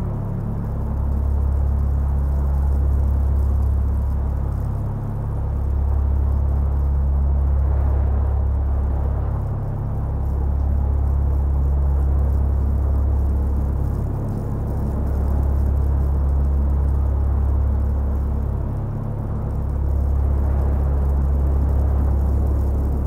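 Deep, steady low drone of dark ambient music, dipping briefly about every four and a half seconds, over a soft hiss of wind.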